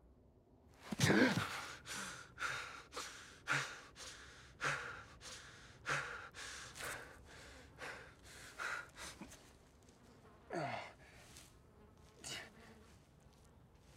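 A man jolting awake with a loud sharp gasp about a second in, then heavy, ragged breathing at about one breath a second, with a groan that falls in pitch near the end: the breathing of a wounded man coming to.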